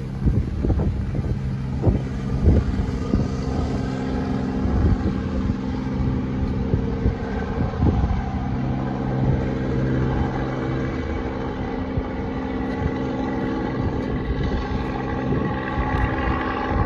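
Helicopter flying away under a slung load, its rotor and engine a steady drone of several pitched tones that thins out as it recedes. Irregular low thumps of wind buffet the microphone.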